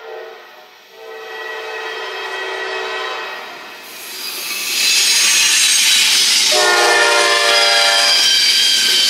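Norfolk Southern freight locomotive sounding its horn in long chord blasts as it approaches and passes, one about a second in and another about six and a half seconds in. From about four seconds in the rush of the locomotive and its wheels on the rails swells up and stays loud.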